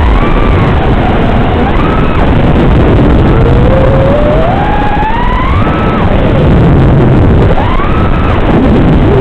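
FPV quadcopter's brushless motors whining through a rough, noisy onboard recording, the pitch rising and falling repeatedly as the throttle changes during flight.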